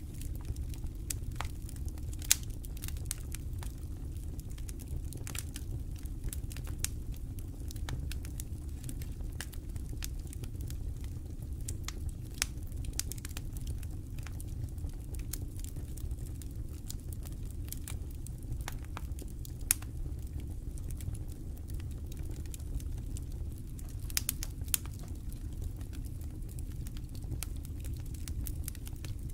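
Wood campfire crackling, with irregular sharp pops and a few louder snaps, over a steady low rumble.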